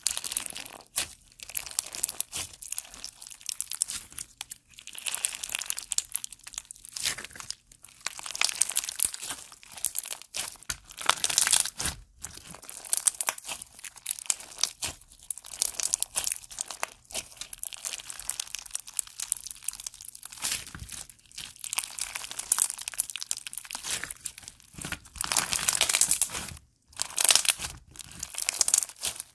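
Purple slime packed with clear plastic fishbowl beads being squeezed and kneaded by hand: crunching, crackling bursts, one with each squeeze, with short pauses between.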